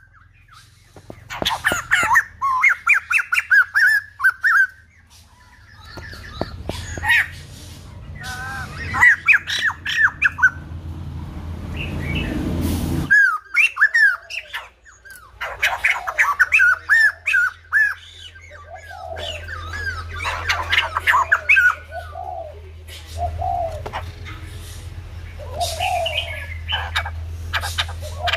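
White-crested laughingthrush calling in loud bursts of rapid, chattering notes with short pauses between bursts, and lower hooting notes near the end.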